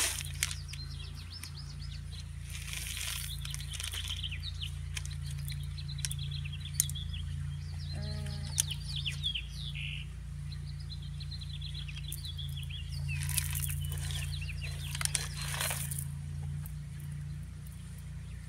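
Small songbirds chirping in quick runs of short, falling notes, with now and then a clatter and rattle of small pebbles as a toy loader and dump truck scoop and tip them, over a steady low hum.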